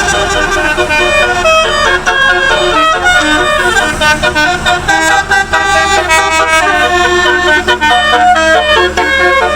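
Bus 'telolet' basuri horn, a set of multi-tone air horns playing a quick melody of changing notes, with a steady low hum underneath.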